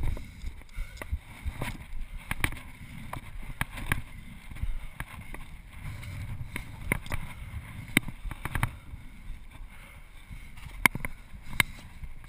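Footsteps and shoe scuffs on a stone roof ridge and clay tiles: irregular clicks and knocks every second or so over a low rumble of wind and handling on the body-worn camera's microphone.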